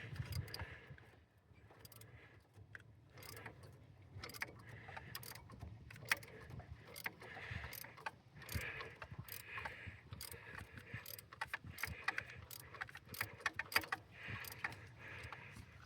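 Hand tool turning a seized, rusted bolt by hand: a run of irregular metallic clicks and clinks as the bolt starts to give.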